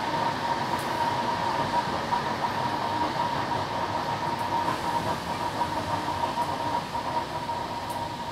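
Passenger train running along the track, heard from inside the carriage: a steady rolling rumble with a thin, steady high whine over it, easing slightly toward the end.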